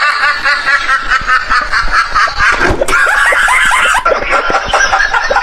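Rapid, laugh-like cackling, with the sound changing about four seconds in.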